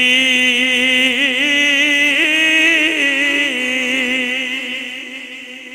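A man's voice chanting one long held note, drawing out the name Idris, with wavering ornaments in the middle; it fades away near the end.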